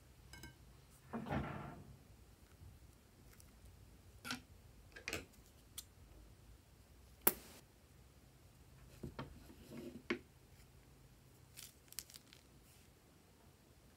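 One sharp snip of scissors cutting the tip off a plastic piping bag, about seven seconds in, among scattered soft rustles and clicks of the bags being handled and squeezed over a glass bowl.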